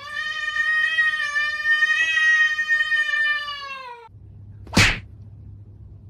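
A cat giving one long, drawn-out meow of about four seconds, rising at the start and falling away at the end. A short sharp noise follows soon after.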